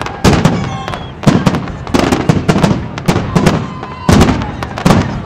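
Aerial firework shells bursting in a fast, loud volley, two or three bangs a second, each bang trailing off into a rumbling echo.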